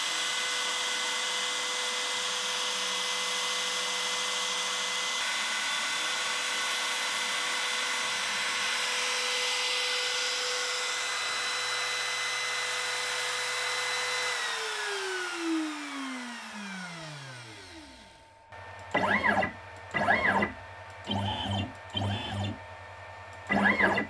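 Makita compact router spindle on a desktop CNC machine running at speed with a steady high whine, then switched off and spinning down, its pitch falling away over a few seconds. Near the end come several short whirs that rise and fall in pitch.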